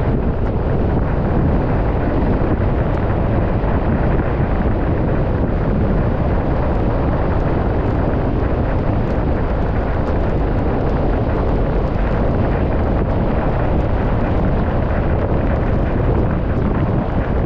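Steady road and wind noise of a car driving at an even speed.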